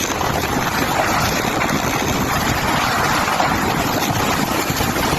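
Hurricane wind rushing steadily and loudly against the microphone.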